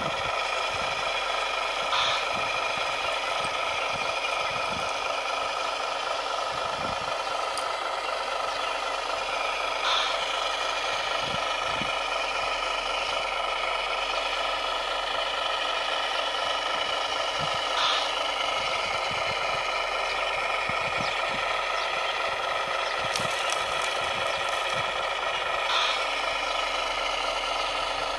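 Radio-controlled model construction machines running: a steady mechanical whine with several pitches held at once, and a light click about every eight seconds.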